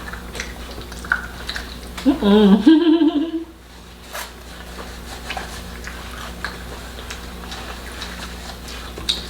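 Close-up eating sounds of fufu and soup: small mouth clicks and the light taps of dishes. About two seconds in, a short wavering hum, 'mm', lasting about a second and a half.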